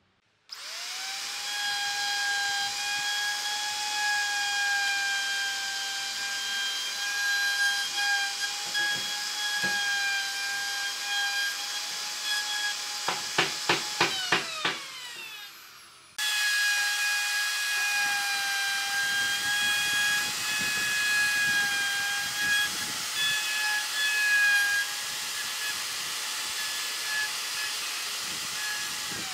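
Electric plunge router running at full speed with a steady high whine while cutting a hinge recess into the edge of a wooden door. About halfway through there are several sharp clicks and the motor winds down with falling pitch; then the whine is suddenly back at full speed and holds steady, starting to wind down again at the very end.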